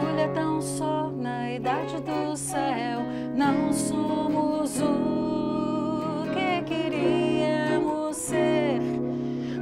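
A woman singing a song in Portuguese, with long wavering held notes, accompanied by an acoustic guitar and an electric guitar.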